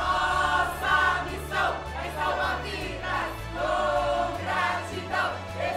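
A group of voices singing a chant together in Portuguese, over backing music with a steady low bass.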